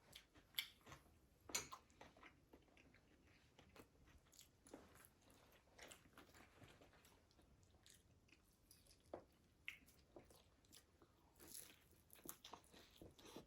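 Close-up biting and chewing of a crispy fried egg roll: scattered sharp crunches with wet chewing between them, the two loudest crunches about half a second and a second and a half in.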